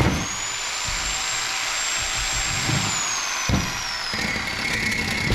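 Power cutter with a cut-off disc running into metal, a high motor whine that sinks slowly in pitch from about halfway as the disc takes load in the cut, with a couple of dull knocks.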